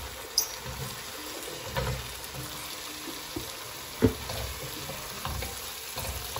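Diced raw potatoes dropped into a pot of simmering, sizzling tomato curry sauce, then stirred in with a wooden spatula: a few soft thuds and knocks, the loudest about four seconds in, over a steady sizzle.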